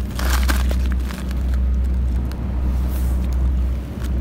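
A loud, low, unsteady rumble that swells and dips, with a few crunches of pebbles in the first half-second.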